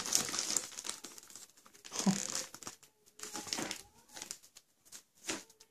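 Plastic courier mailer bag bound with packing tape crinkling and rustling in irregular bursts as hands turn it over and work at it to get it open.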